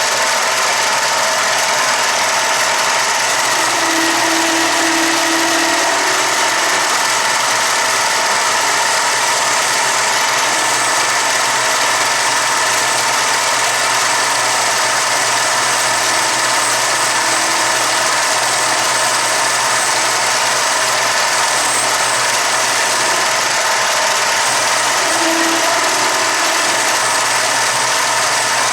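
Machine tool running steadily as it machines a 3-inch plug, a loud even mechanical noise with faint steady tones throughout. A brief higher tone comes in about four seconds in and again near the end.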